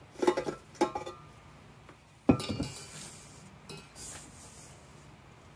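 Stainless steel stand-mixer bowl clinking as it is taken off the mixer base, then set down on the counter with one loud clunk about two seconds in. After it, a spoon scrapes through the dry, powdery bath bomb mix in the bowl.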